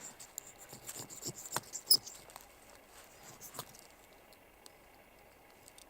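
A run of short metallic scrapes and clicks from the awl of a Victorinox Super Tinker pocket knife being worked to throw sparks, the sharpest click with a brief ring about two seconds in, then the strokes stop after about four seconds.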